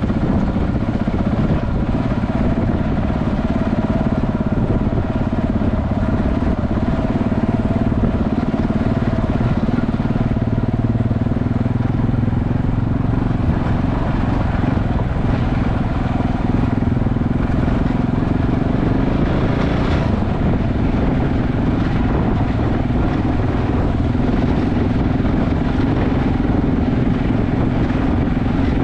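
KTM 690 Enduro's single-cylinder engine running steadily while riding, its pitch shifting a little, over heavy low rumbling noise. A sharp knock about twenty seconds in.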